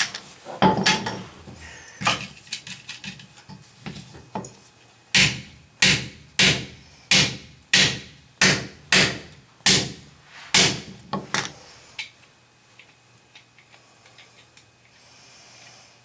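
Hammer blows: a few lighter knocks and clatter, then a steady run of about ten sharp strikes, roughly one and a half a second, which stops about three quarters of the way through.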